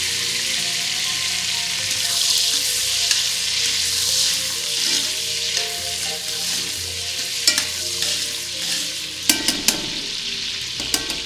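Chicken hearts sizzling in bubbling butter in an enameled pot. In the second half, a few sharp clicks of metal tongs against the pot as the hearts are stirred.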